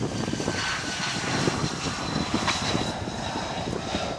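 F-35B Lightning II's single F135 jet engine whining steadily as the aircraft lands and rolls out along the runway. The whine sinks slightly in pitch and fades a little toward the end.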